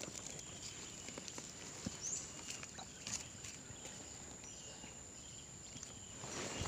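Quiet outdoor ambience: a steady high-pitched drone of insects with a few faint chirps, and light rustling and snapping of dry leaves and twigs being handled.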